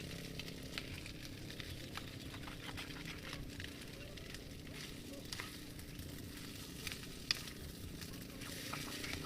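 Food sizzling and crackling as it fries in a pan, with frequent sharp pops over a steady hiss.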